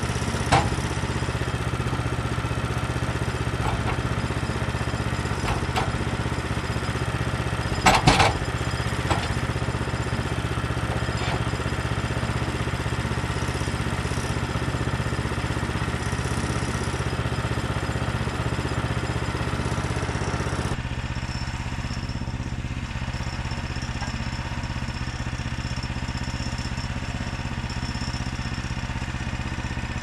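Portable sawmill's small gas engine idling steadily, with a few sharp knocks and clanks from the log being handled on the steel mill bed, loudest about eight seconds in. The hum gets a little quieter about two-thirds of the way through.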